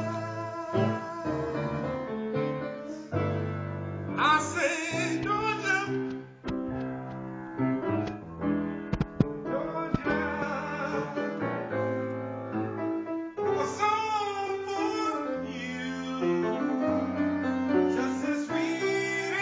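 Electronic keyboard played in sustained chords, with a voice singing a melody over it at times. A few sharp clicks come about nine seconds in.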